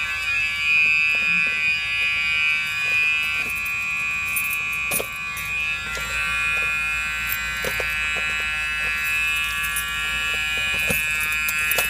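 Emergency exit door alarm sounding a steady, unbroken electronic buzz, still going after its lock was dropped out by the fire alarm system. A few faint clicks sound over it.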